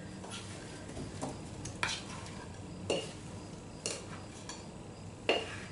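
A utensil scraping and knocking against a glass mixing bowl as sliced apple filling is scooped out into a pie crust, with four sharp clinks about a second apart.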